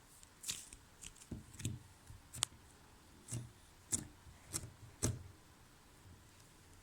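Slime being squeezed and poked by hand: a series of about nine short, sticky clicks and pops, then quiet for the last couple of seconds.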